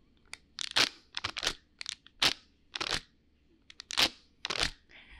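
Paper party blowout (fukimodoshi) blown in a series of short puffs, its paper tube crinkling as it shoots out and curls back. About ten brief rustling bursts, unevenly spaced, with no whistle tone.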